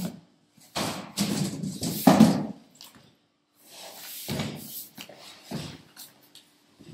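Cardboard boxes being handled: the outer shipping carton slid off and tossed aside, then the boxed controller lifted, turned over and set down on the table, with sliding, scraping and knocks of cardboard. The longest and loudest stretch of scraping comes in the first three seconds, followed by a few shorter knocks and rustles.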